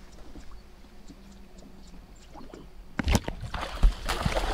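A largemouth bass striking a topwater frog lure in shallow, duckweed-covered water: quiet, then a sudden splash about three seconds in, with two sharp hits and churning water to the end.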